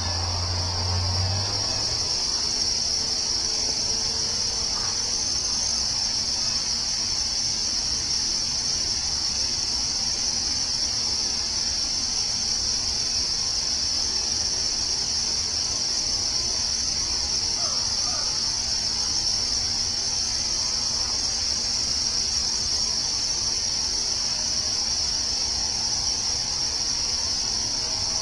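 Chorus of crickets in a forest: a steady, unbroken high-pitched trill. A low rumble stops about a second and a half in.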